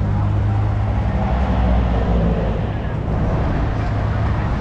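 An engine running steadily with a low, even drone, amid the general noise of a racing paddock with voices in the background.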